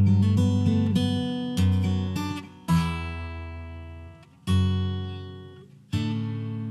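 Steel-string acoustic guitar played fingerstyle: five chords picked in turn, each left to ring and fade before the next.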